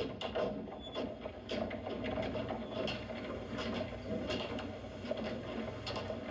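Light, irregular clicking and clatter, several small clicks a second, over a steady background hiss.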